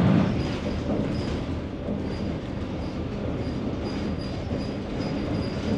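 Cabin noise inside a single-deck bus on the move: a steady rumble from road and running gear, with faint high-pitched chirps coming and going.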